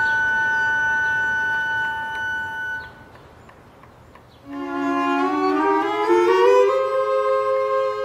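Instrumental film music: held notes, a short lull about three seconds in, then a run of notes climbing step by step that settles on a held chord.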